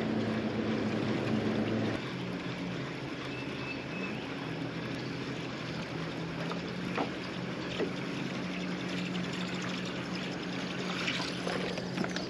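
Steady hum of a boat motor over water lapping and trickling; the motor's pitch shifts lower about two seconds in. There are a couple of light clicks near the middle.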